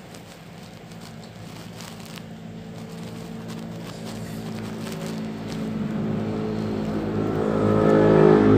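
A motor vehicle's engine running and growing steadily louder over several seconds, with a few faint clicks of hand-eating from the plate underneath.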